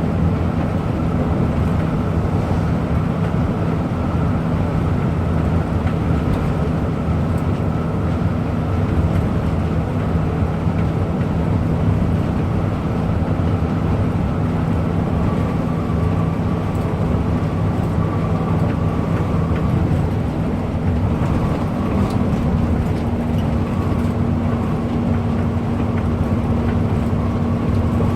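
Bus engine running steadily under way, with road and tyre noise. The engine note shifts slightly about two-thirds of the way through.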